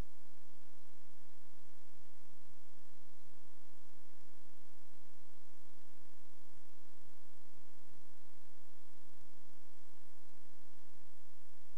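Steady electrical mains hum and buzz made of many fixed tones, with an uneven flutter low down.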